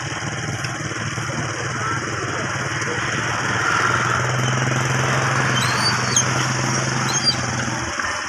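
Tour bus diesel engine running with an even low pulse; about four seconds in it grows louder and steadier, then drops away shortly before the end.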